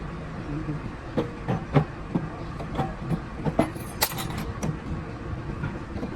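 Workshop clatter: irregular metal clinks and knocks over a steady low hum, with a short rattle about four seconds in.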